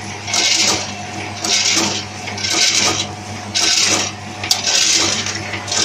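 Snack packaging machine running: a rasping hiss repeats about once a second over a steady motor hum, one burst for each packing cycle.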